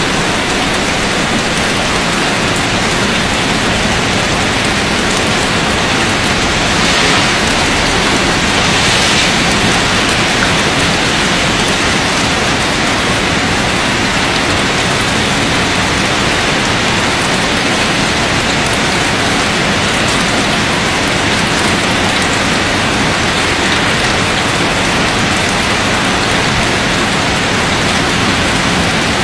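Heavy rain falling and drumming on surfaces, a loud steady downpour that swells briefly about a quarter of the way through.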